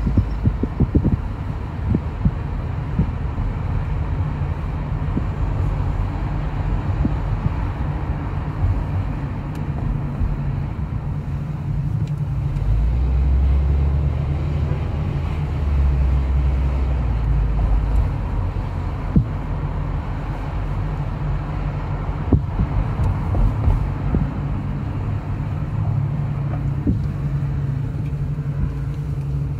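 Steady low engine and road rumble of a car driving slowly, heard from inside the cabin. The rumble grows deeper and louder for a few seconds about halfway through.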